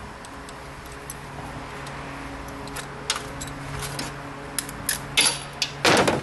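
Metal clinks and taps of hand tools on a rusty steel mower blade and deck as the blade is worked loose, quickening in the second half. A loud metallic clank comes near the end. A steady low hum runs underneath.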